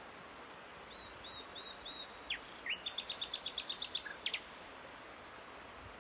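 A songbird singing over a steady hiss of outdoor ambience. About a second in come four short high notes, then two quick downward-sliding notes and a rapid trill of about ten notes, about nine a second. The song ends with two more falling notes.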